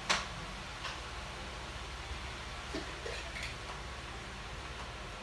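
A sharp click at the start and a fainter one just under a second later, then a few faint small ticks, from glass mason jars and juicer parts being handled, over a steady hiss.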